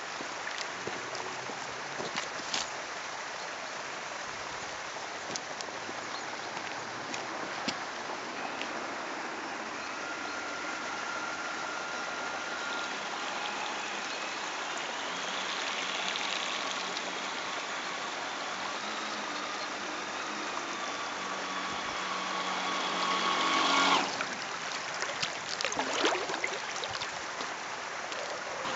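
Steady rush of water from a pond fountain with small waves lapping and wind on the microphone. An RC model boat's motor whine joins about ten seconds in, grows louder and cuts off suddenly about twenty-four seconds in.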